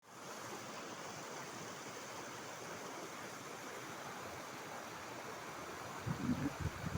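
Steady rush of flowing water. About six seconds in, wind starts buffeting the microphone in irregular low gusts.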